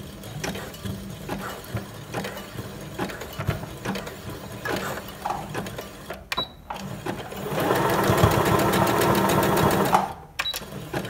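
Electric sewing machine running a wide zigzag stitch. Slow, uneven stitching fills the first few seconds. After a brief pause, a steady fast run of stitches lasts about two seconds and then stops.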